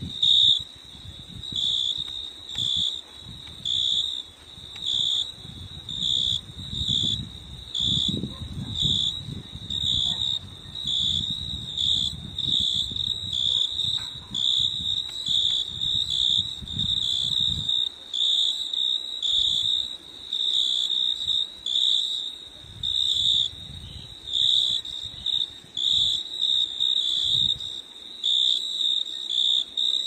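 An insect chirping in short, repeated pulses at one high pitch, about one or two a second, with a low rumble beneath that stops a little past halfway.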